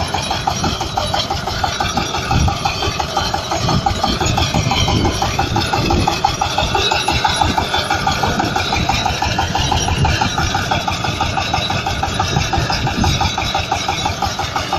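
Tractor engine running steadily while it works a potato harvester, with a rapid, even clatter from the machinery.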